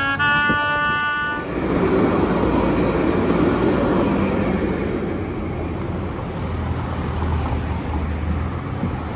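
A light-rail tram passes close by: a rushing rumble of wheels on rail that swells about two seconds in and slowly eases, with a low hum underneath. A short held chord of several steady tones opens the sound and cuts off about a second and a half in.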